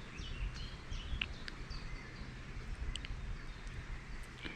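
Small birds chirping and calling in short, quick notes, over a low steady rumble.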